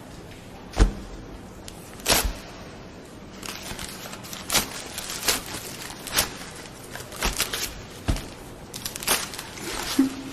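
A series of irregular sharp knocks and clicks, about a dozen spread unevenly, over a steady low background hiss.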